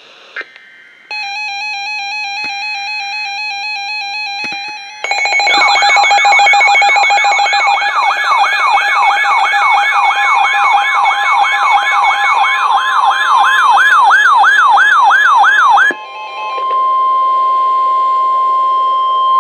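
Weather alert radio sounding an emergency alert for a severe thunderstorm warning. It starts with a steady electronic tone with a second, stepping tone behind it. About five seconds in, a loud siren begins sweeping up and down about two and a half times a second. After the siren cuts off, the steady NOAA Weather Radio 1050 Hz warning tone plays alone.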